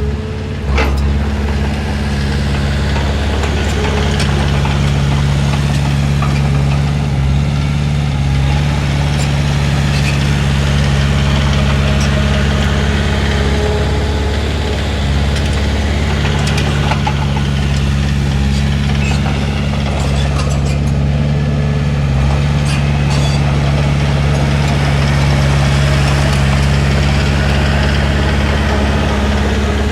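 Komatsu D31P bulldozer's diesel engine running steadily, with a few short clanks scattered through it.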